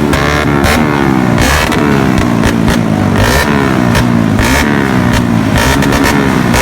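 An engine being revved in quick repeated throttle blips, its pitch rising and falling every second or so.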